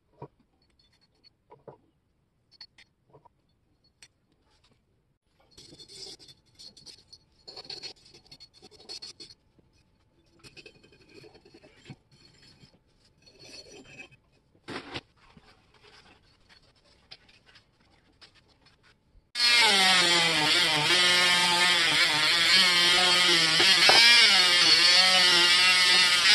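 Hand wire brush scrubbing rust off a metal shear handle in short scratchy strokes, then about 19 seconds in a small handheld rotary tool starts and runs loudly and steadily, its whine wavering a little as the bit works the metal handle.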